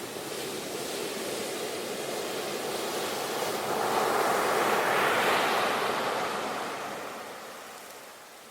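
Ocean surf: a wave breaks and its foam washes in, swelling to a peak about halfway through and then fading away, with some wind.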